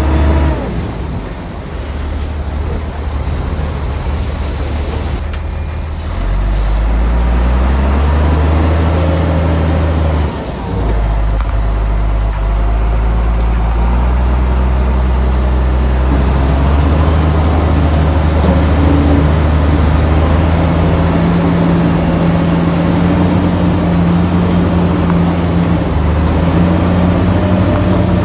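Heavy diesel engine of earthmoving machinery working under load, its pitch stepping up and down as it is throttled. It is a little quieter for the first few seconds and louder from about six seconds in.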